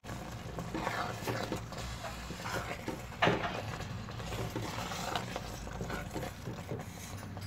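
Wooden spoon stirring a thick, simmering sauce in a metal cooking pot, scraping and knocking irregularly against the pot, with one sharper knock about three seconds in.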